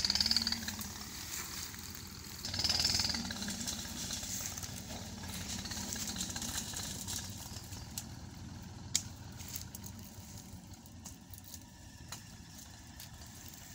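Tractor engine idling steadily, with a brief louder patch about three seconds in and a single click later on.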